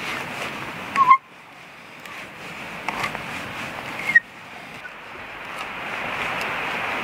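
Hand auger boring into a log: the bit grinds through the wood in long rasping strokes, each ending abruptly with a short squeak, about a second in and again about four seconds in, with a third stroke building towards the end.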